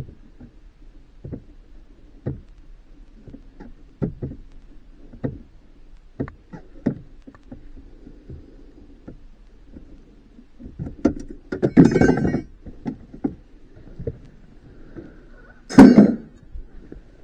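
Scattered small clicks and knocks from handling parts during the radio install. A longer clattering run comes about eleven to twelve seconds in, and a sharper, louder clatter comes near the end.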